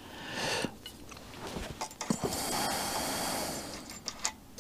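A short hiss near the start and a longer, steady hiss from about halfway to near the end, with a few light clicks in between.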